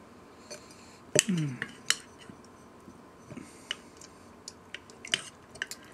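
A spoon clinking and scraping against a glass jar and a glass beaker while thick yogurt is scooped out: a handful of scattered light clinks, the sharpest about a second in.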